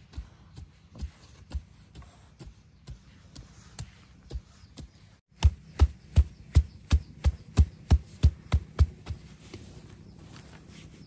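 Soil being tamped around the base of a wooden fence post with the end of a wooden tool handle: a run of about a dozen dull thuds, roughly three a second, starting about halfway through. Before it come lighter, scattered knocks.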